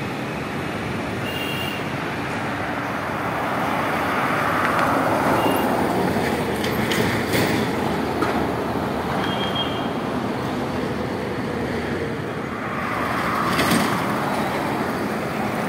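Road traffic passing on a city flyover: a steady wash of engine and tyre noise that swells twice as vehicles go by, first a few seconds in and again near the end.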